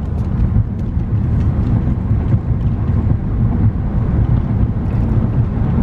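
Steady low rumble of road and tyre noise from a car driving at freeway speed, heard from inside the cabin.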